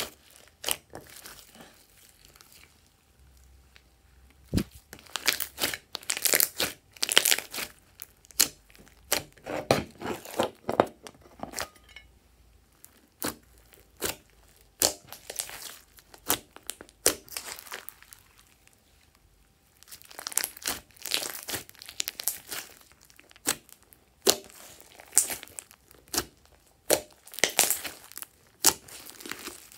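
Sticky glossy slime being stretched, pressed and poked by hand, giving wet squishing and irregular sharp crackling pops as air pockets burst. It is sparse for the first few seconds, dense after that, and pauses briefly about two-thirds of the way through.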